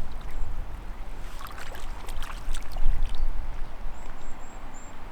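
Water splashing and sloshing as a hooked trout is played and brought in at the water's edge, in irregular bursts, the busiest stretch about one to three seconds in, over a steady low rumble.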